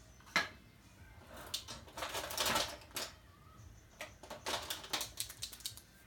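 Handling noise at a drawing desk: a sharp click about half a second in, then a stretch of rustling, then a run of small clicks and taps as a brush pen and other tools are picked up and handled.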